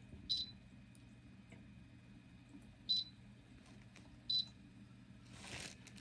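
Touch control panel of a Solonsuo ultrasonic cool-mist humidifier giving three short, high beeps, one for each press of its timer button.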